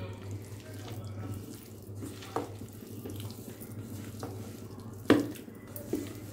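A hand squishing and mixing fish pieces in a wet masala-and-flour marinade in a steel bowl, wet squelching with a few sharp knocks against the bowl, the loudest about five seconds in.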